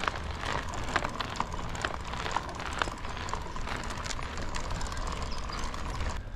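Footsteps on a hard road, about two a second, over a steady low rumble of wind on the microphone.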